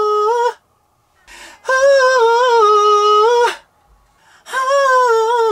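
A male singer's voice holding long, high sung notes into a studio microphone, with no backing heard: one note ends about half a second in, a second is held for about two seconds in the middle, and a third begins near the end. Each note wavers a little in pitch.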